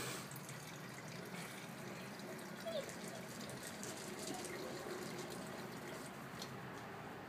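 A steady low hiss of background noise, with a faint short chirp about three seconds in and a few light ticks.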